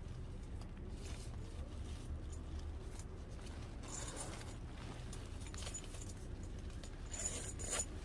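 Small metal parts jingling and clicking as the tent's metal zipper slider and pull tab are handled, with a short rattle about halfway through and a louder one near the end.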